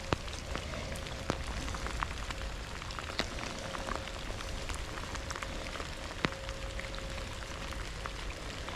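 Steady rain pattering, with scattered sharp ticks of single drops landing close by.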